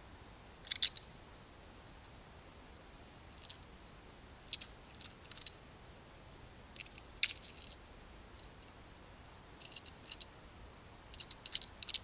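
Irregular little clusters of sharp clicks and crackles, about six groups, over a faint steady hiss.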